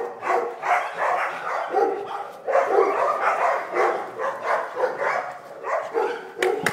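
A dog barking over and over in quick succession, about three short barks a second.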